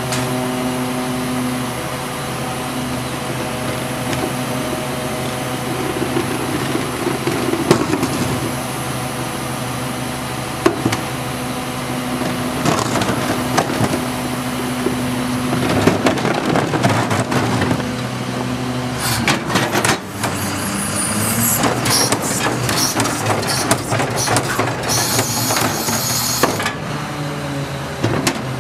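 CCC/Heil 5000 rear-loader garbage truck running, its engine and hydraulic packer giving a steady hum with a whine that comes and goes. From about two-thirds of the way in, trash cans clatter and knock against the hopper as they are tipped, with a short hiss near the end.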